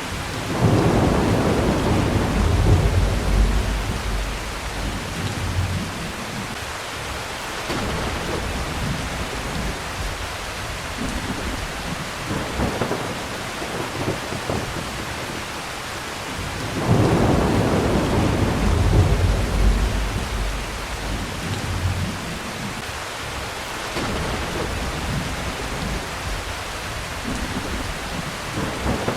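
Heavy rain falling steadily, with two long rolls of thunder: one rumbling up right at the start and fading over several seconds, the other a little past halfway.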